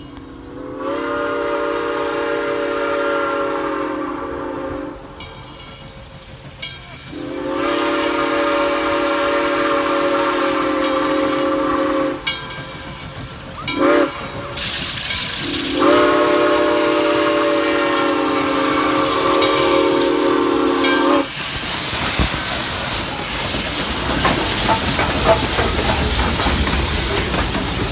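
Steam locomotive whistle sounding the grade-crossing signal: two long blasts, one short, one long. About three quarters of the way in, the whistle stops and the two steam locomotives of a doubleheader pass close by with a loud, steady rush of exhaust and steam hiss.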